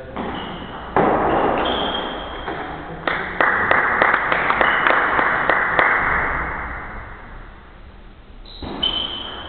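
Sports-hall din from table tennis play: a sudden loud burst about a second in, then from about three seconds a run of sharp ball knocks, several a second, over a noisy haze that fades after about six seconds.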